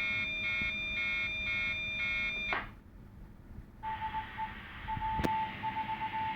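Radio receiver's speaker playing open, wordless transmissions. The first carries a steady buzzing tone that stutters on and off rapidly, then drops out with a short burst of squelch noise about two and a half seconds in. After a brief pause a second hissy transmission opens with a broken, beeping tone and a single click.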